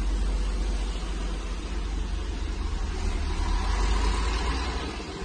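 Toyota Alphard's engine idling, heard inside the cabin as a steady low rumble.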